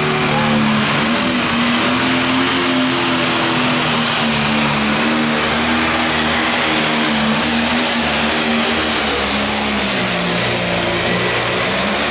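John Deere Limited Pro Stock pulling tractor's turbocharged diesel engine running at high revs under full load while dragging the weight sled. Its pitch wavers, sags about ten seconds in, then climbs again.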